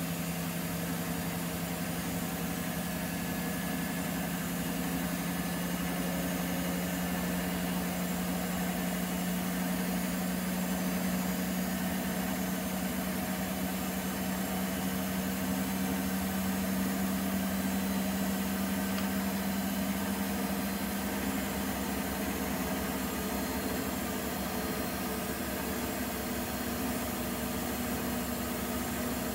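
Nortec Primus P6 commercial washing machine spinning its drum: a steady motor hum with a whine that creeps slightly higher in pitch, with no pauses or reversals.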